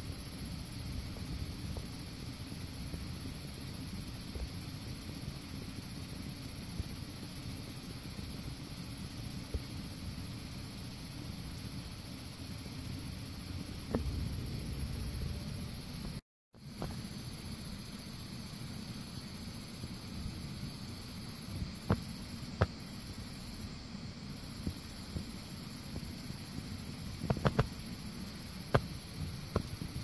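Air conditioner unit running with a steady low hum. The sound drops out for a moment about halfway through, and a few sharp clicks come near the end.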